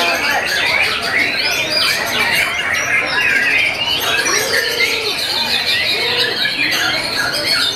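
Caged white-rumped shamas (murai batu) singing over one another at a songbird contest: a dense, unbroken tangle of quick chirps, whistles and trills.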